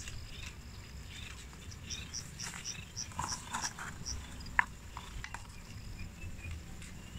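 Dry twigs and leaves rustling as kindling is handled, with a few sharp clicks a little past the middle. A run of about eight evenly spaced high chirps sounds in the background around the middle.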